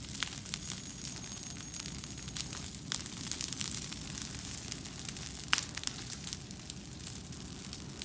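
Brush pile of freshly cut green branches burning, crackling with irregular sharp snaps and pops. The loudest snap comes about five and a half seconds in.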